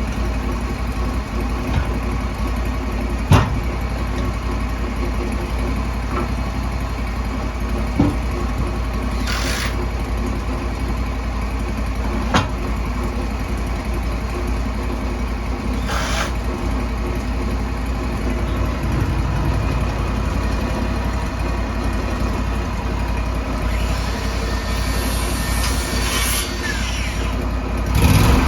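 Sawmill engine running steadily, with a few sharp knocks and two short hissing bursts over it.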